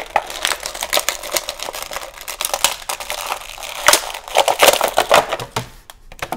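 Thin clear plastic blister packaging crinkling and crackling in a quick, irregular run of clicks as hands bend it and pull an action figure free.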